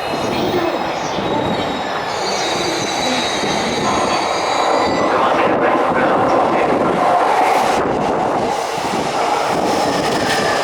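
E233 series electric train pulling into a station platform and braking, with a continuous rumble of wheels on rail. Several thin high-pitched squealing tones sound over it for the first half and then fade out.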